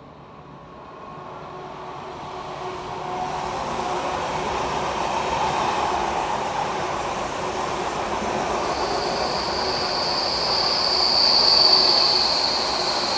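Vy Class 75 Stadler FLIRT electric multiple unit, two units coupled, running in along the platform. The wheel-on-rail rumble grows louder over the first few seconds. A steady high squeal sets in about two-thirds of the way through and is loudest near the end.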